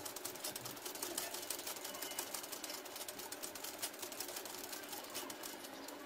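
Ordinary sewing machine stitching slowly for free-hand embroidery: a quick run of needle-stroke clicks that stops just before the end.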